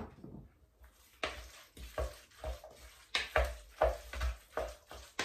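Guacamole being mixed in a bowl with a wooden spoon: wet, squelching stirring strokes at roughly two a second, starting about a second in. A single knock comes at the very start.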